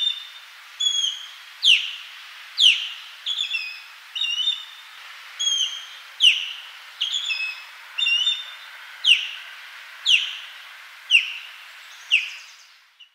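Osprey calling: a series of about fourteen clear whistled notes, roughly one a second. Some are sharply falling notes and others are short level double notes.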